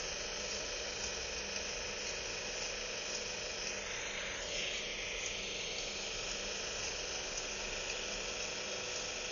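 Steady hiss with faint, unchanging hum tones underneath; no beat or melody.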